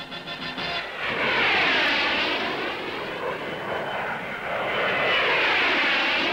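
Two Hawker Hunter F4 jets, each with a Rolls-Royce Avon turbojet, passing low one after the other just after take-off. The jet noise comes up about a second in and swells and fades with each of the two passes.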